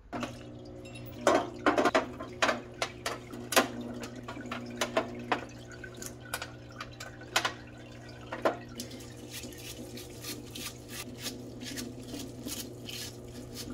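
Solvent parts washer running with a steady pump hum and flowing solvent, as small metal power-ratchet parts clink against the tub. From about nine seconds in, a stiff brush scrubs the parts in the solvent with quick scratchy strokes.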